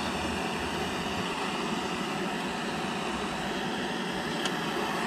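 Handheld gas torch hissing steadily, its flame held on the seat's steel springs to burn off the old padding.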